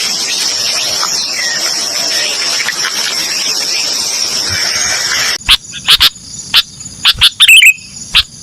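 A steady, high-pitched insect chorus with a few bird chirps over it, which cuts off abruptly about five seconds in. Then a series of about eight loud, sharp clicks or knocks follows.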